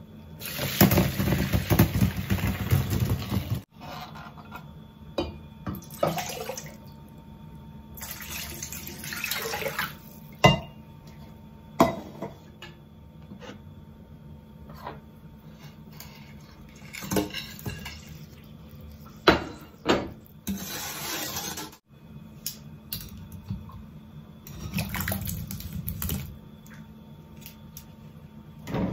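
Water poured from a stainless steel pot of kumquats into a metal mesh strainer, splashing loudly for about three seconds. After that come shorter spells of water pouring and a few sharp clinks of pots and dishes.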